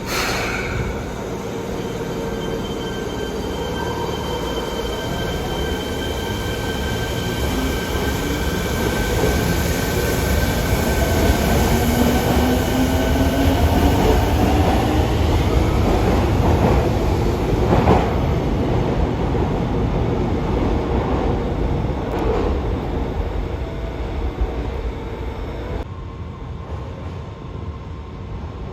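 Fukuoka City Subway 1000N series electric train pulling away, with the jet-engine-like whine it is known for. Steady high whines fade as the motor tones rise in pitch while it accelerates, growing louder and then easing off.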